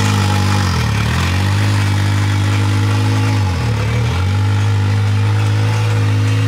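Can-Am Maverick X3 side-by-side's engine running at low revs while it is driven slowly. The pitch dips briefly twice, about a second in and again around the middle.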